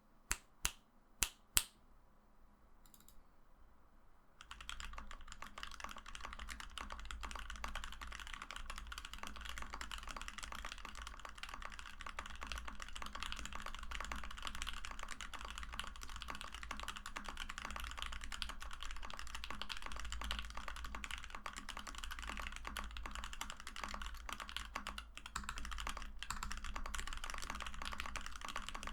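Typing on a Switch Couture Alice acrylic mechanical keyboard with Krytox-lubed C3 Equalz Tangerine V2 linear switches and PBT keycaps. Four separate sharp clicks come in the first two seconds, then steady fast typing starts about four and a half seconds in.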